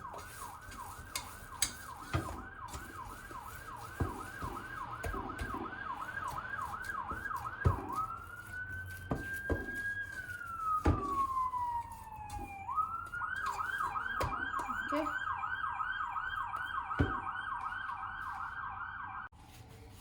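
Emergency vehicle siren in a fast yelp of about three sweeps a second, which changes about eight seconds in to one slow wail that rises, holds and falls, then goes back to the fast yelp and cuts off suddenly near the end. A few light knocks sound now and then.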